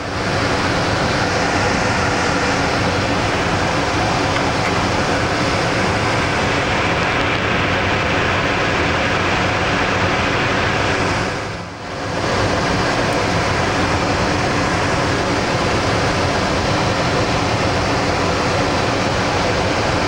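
Steady rushing of filtered air flowing through a clean room, an even hiss that dips briefly a little past halfway.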